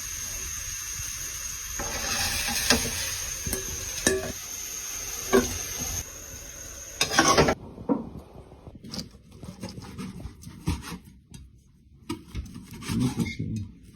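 Steady hiss from a pot of pig skin blanching on the stove, with a few sharp knocks of a utensil against the pot. About halfway through the hiss cuts off suddenly, leaving scattered light clicks and clinks of kitchenware.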